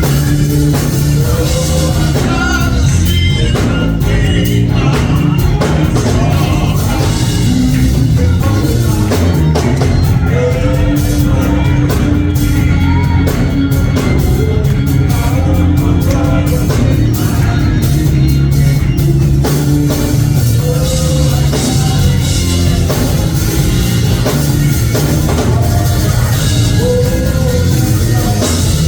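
Live gospel praise music: a band with drum kit playing continuously, with singing over it.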